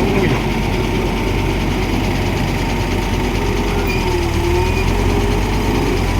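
Caterpillar wheeled excavator's diesel engine running steadily under load, with a wavering hydraulic whine that dips and recovers about four seconds in, as the machine strains to pull a steel plate stuck tight in mud.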